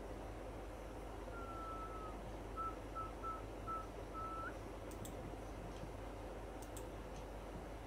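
A thin high tone sounding in a pattern: one long note about a second in, then four short ones and a longer note that bends upward at its end, over a steady low hum. A few faint clicks follow near the end.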